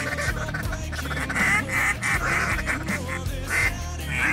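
Waterfowl calling, short quacks and honks repeated every fraction of a second, over background music with a steady low bass.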